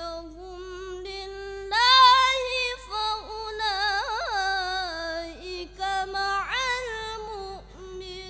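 A boy reciting the Quran in the melodic tilawah style, holding long sung notes decorated with quick wavering trills. About two seconds in his voice leaps to a higher, louder note, and it falls back lower near the end.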